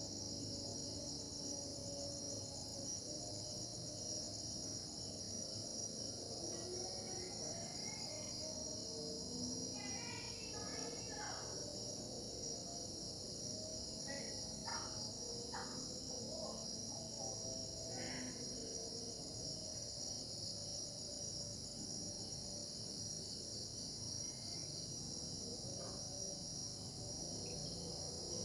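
Steady high-pitched chorus of insects, crickets by the sound, shrilling without a break, with a few short chirping calls from some other animal about ten seconds in and again around fifteen to eighteen seconds.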